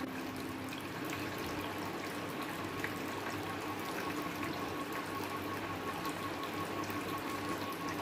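Water pouring over a rock in a small cascade: a steady rush and splash of flowing water. A faint steady hum runs under it.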